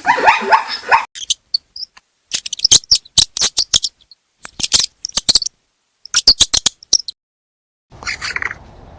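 Animal calls: a short call falling in pitch, then clusters of quick, sharp high chirps or clicks in rapid runs, and after a brief gap a few short high calls.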